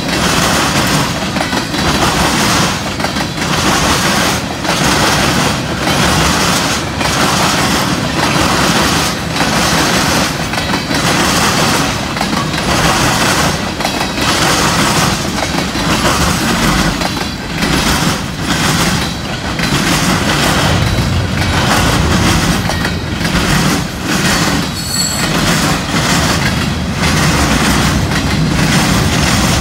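Freight train of tank cars and boxcars rolling steadily past, its steel wheels clattering over the track in a repeating rhythm. Near the end comes a brief high wheel squeal.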